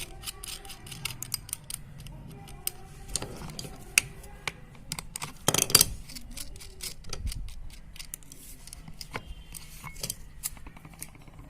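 Clicks and clinks of small metal tools and parts as a small sewing-machine motor is opened up, with a louder clatter about five and a half seconds in.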